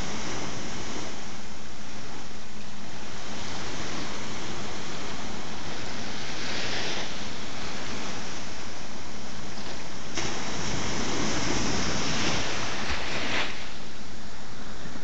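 Sea water washing against a rocky shoreline: a continuous rush of surf that swells briefly about halfway through and again for a few seconds near the end.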